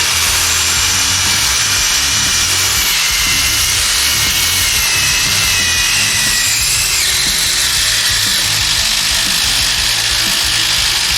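Two cordless brushless impact drivers, a HART and a DeWALT DCF887, running together under load and hammering continuously. Their high whine wavers partway through.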